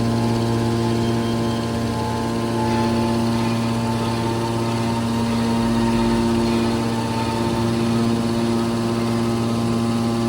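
Aluminum baler's hydraulic power unit running, a steady machine hum with several even tones and no strokes or impacts.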